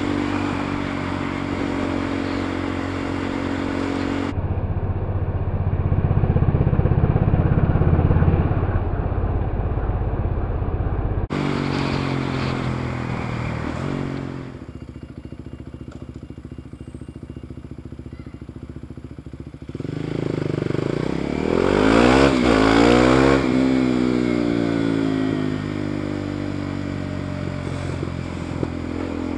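KTM Duke 390 single-cylinder engine running through an aftermarket Pipewerx full-system carbon exhaust while the bike rides in traffic. The revs climb and drop off repeatedly, with a marked rev-up and fall-off about two-thirds of the way through, over wind noise.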